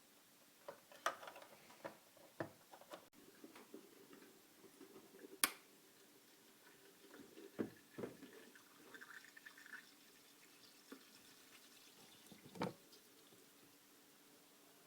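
Faint, irregular water drips and gurgles, with a few small knocks over a low steady hum.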